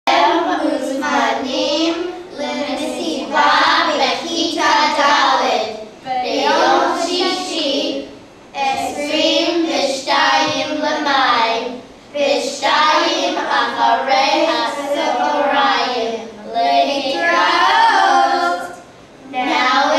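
A group of children singing together in unison, in phrases of a few seconds with short breaks between them.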